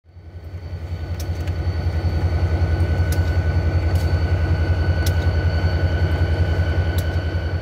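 Diesel locomotive engine running with a steady, fast-pulsing low throb and a faint steady whine above it, with a few sharp ticks.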